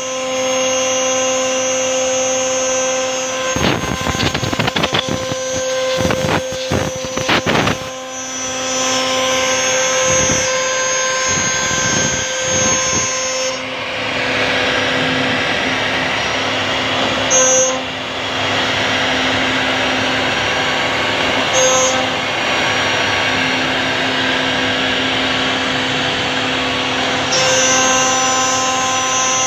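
RT1325V CNC router routing panels out of a wooden board: a steady whine from the spindle and machine over the rough hiss of the bit cutting through the board, with a few brief louder swells.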